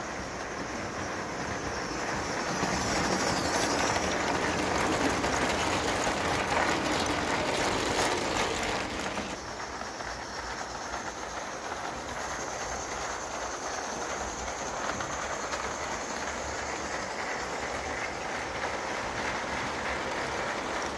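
Tinplate model train running on metal track, a steady rattling clatter of wheels and coaches. It is louder for the first several seconds, then drops about nine seconds in.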